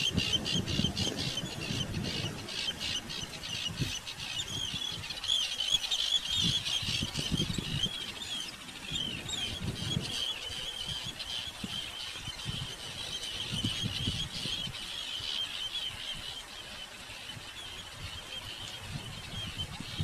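Many birds calling at once, a constant chatter of high, wavering chirps, thickest in the first few seconds, over an intermittent low rumble.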